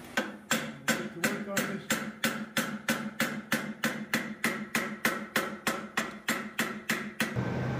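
Hand hammer striking red-hot steel clamped in a bench vise, a steady rhythm of about three blows a second, squishing the metal down. The blows stop near the end and a low steady hum comes in.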